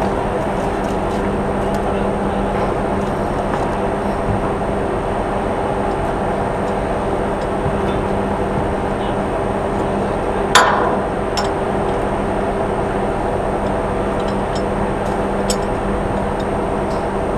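Steady drone of a ship's machinery with a constant low hum, and one sharp metallic clank about two-thirds of the way through.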